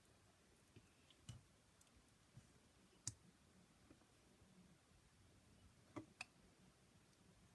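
Near quiet, with a few faint, scattered clicks and taps of small objects being handled. The loudest is about three seconds in, and there is a close pair about six seconds in.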